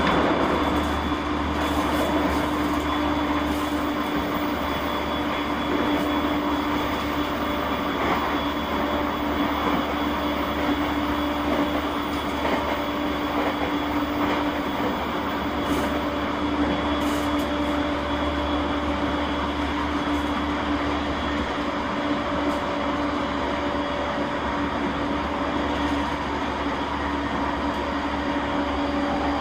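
Running noise of a JR East E231 series 1000-subseries electric train with renewed traction equipment, heard from inside the car while it travels at steady speed: an even rumble of wheels on rail under a constant-pitch motor hum.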